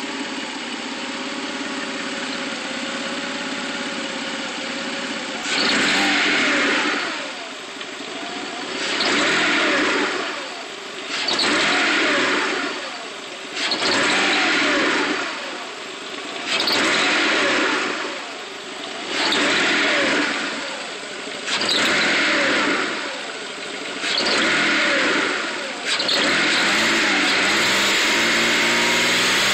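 1995 Mitsubishi 3000GT's 3.0-litre V6 idling, then revved about eight times in a row, each rev rising and falling back to idle, and held at higher revs near the end. The owner reports a rough idle and that the engine stumbles when given gas before revving up, with something like a misfire, cause unknown.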